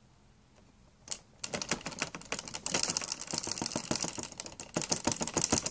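A fast, dense run of sharp clicks and clatter, like typing, starting about a second in and getting busier.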